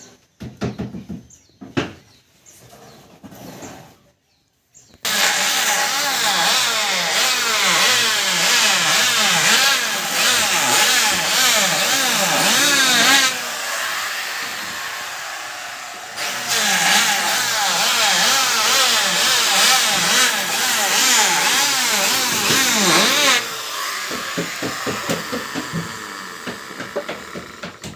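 Electric wood planer cutting a wooden beam. A few knocks come first. About five seconds in, the loud cutting noise starts suddenly, its pitch wavering as the load changes. It eases off for a few seconds in the middle and then cuts a second time at full level.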